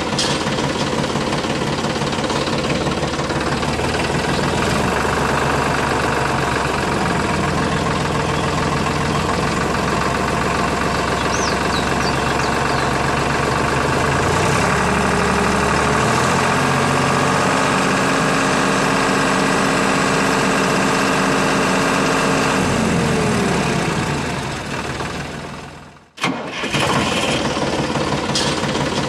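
A tractor engine running steadily. Its pitch rises about halfway through, then it winds down and dies out near the end before starting up again abruptly.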